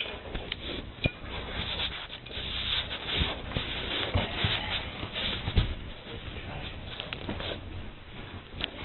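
A man eating a burger: close, irregular rustling and rubbing noises with scattered soft knocks, the loudest about five and a half seconds in.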